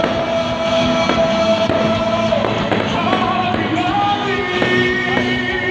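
Music with a singing voice carrying a held, wavering melody, with fireworks bursting faintly underneath.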